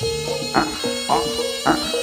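Live jaranan ensemble music: struck gamelan-style notes and drum strokes on a steady beat about twice a second, with a reed pipe holding high notes over it.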